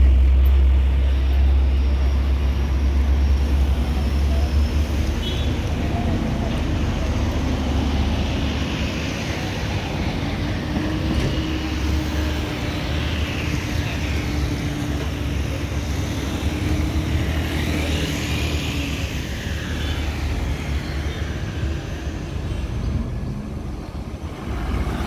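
Road traffic passing close: a heavy diesel truck rumbles by at the start, loudest in the first seconds, then buses, cars and motorcycles move along the road with a steady engine hum through the middle.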